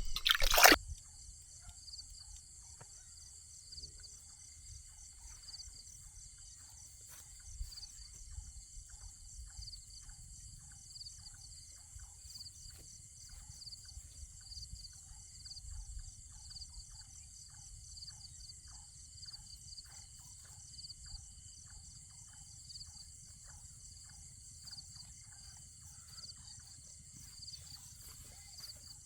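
A steady high-pitched chorus of insects, such as crickets or cicadas, pulsing about twice a second, over faint regular ticking and a low rumble. A brief loud burst of noise comes right at the start.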